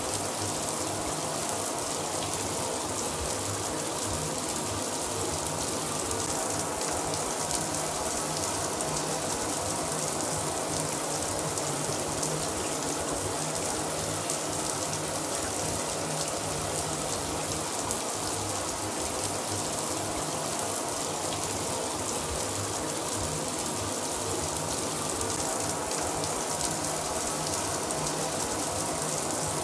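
Shower running steadily, the spray falling in an even, unbroken hiss.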